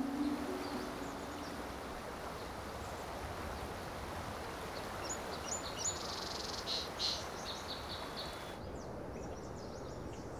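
Steady rush of a shallow creek running over a small cascade, with small birds giving quick, high chirps from about five seconds in. Near the end the background turns quieter and duller, with a few faint chirps.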